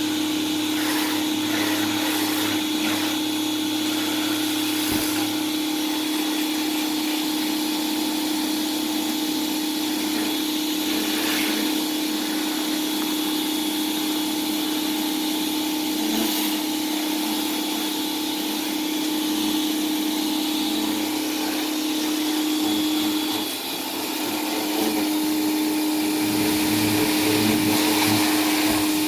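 Pressure washer running steadily, a constant hum with the hiss of the water spray from the wand. The sound dips briefly about three-quarters of the way through, then picks up again.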